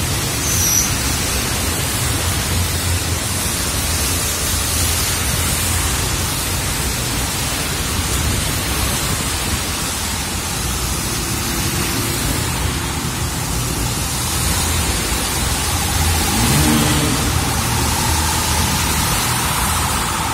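Heavy rain pouring down as a steady dense hiss, with the low rumble of cars and motorcycles driving through standing water on a flooded road.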